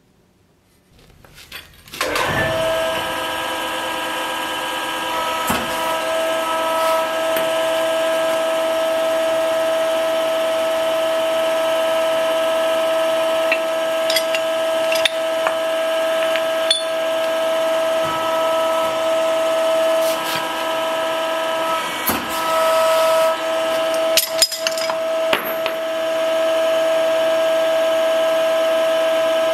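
The electric motor of a workshop press starts up about two seconds in and runs with a steady whine, with a few light metallic clinks as steel pieces are set on the press die.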